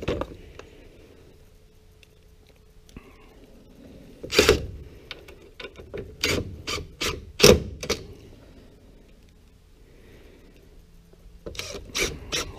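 Makita 18-volt cordless drill driving wood screws into a pine chair frame in short bursts: one a third of the way in, several in quick succession around the middle, and more near the end.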